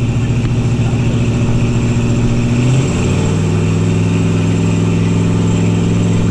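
Ford Bronco's V8 engine running steadily at idle; its note shifts to a different pitch about three seconds in.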